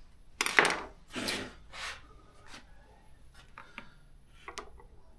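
Hand disassembly of a chainsaw: three short scrapes of parts rubbing and sliding against each other in the first two seconds, the first the loudest, then a few light clicks.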